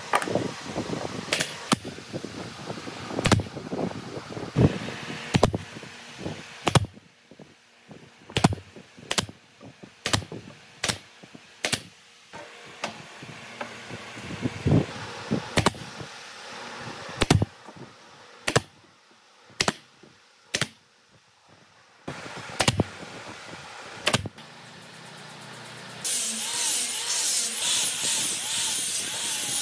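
A nail gun firing about two dozen single shots at irregular spacing, driving nails into hardwood panels as a cabinet box is fastened. About 26 seconds in, a corded angle grinder with a sanding pad starts running steadily, with a wavering whine.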